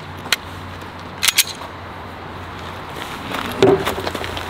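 Handgun being loaded and made ready: a few sharp metallic clicks, with a loud quick cluster of clicks about a second in, as the magazine is seated and the slide is worked.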